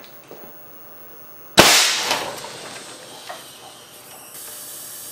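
A solenoid-valve air cannon fires a cast lead slug through the glass of a live CRT television: one sharp bang about a second and a half in, with the picture tube's screen shattering and a short rattling tail. Near the end a steady high hiss sets in: the TV's flyback high voltage still running and arcing in the shot-out tube.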